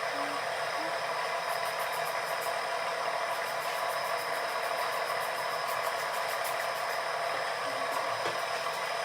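Power sander running steadily with a constant whir and hiss, sanding body filler, with faint rapid ticking in the middle stretch.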